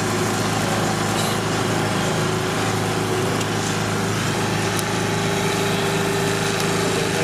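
A small motor running steadily with a constant low hum.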